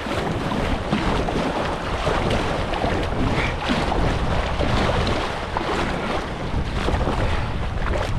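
Wind buffeting the microphone over the steady rush of river water, with a heavy low rumble from the wind.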